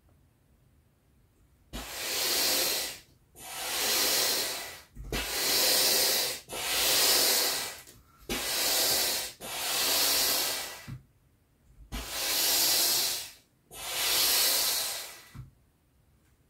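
Hand-operated piston air pump inflating an inflatable jet ski: eight strokes of rushing air, each about a second long, starting after a short pause and with a longer break about two-thirds of the way through. A dull knock sounds at several of the strokes.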